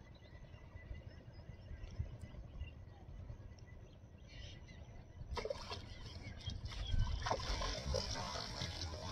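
Water splashing: irregular slaps and splashes start about five seconds in and get louder, over a low steady rumble.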